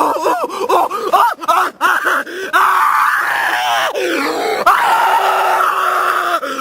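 A man's wordless vocalising: a quick run of short up-and-down yelps, then a long, strained scream-like groan lasting about four seconds.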